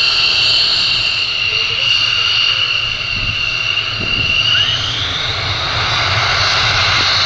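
F-16 Fighting Falcon's turbofan engine running on the ground at low power: a steady high whine, its pitch rising slightly about five seconds in, over a low rumble.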